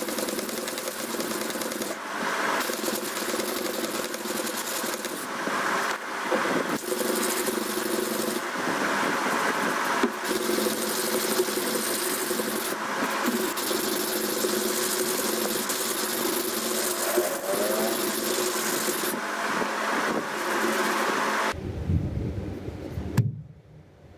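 Steel knife blade being rubbed back and forth by hand with an abrasive to scour off rust, a steady scratchy scraping over a steady machine-like hum. The sound changes abruptly near the end.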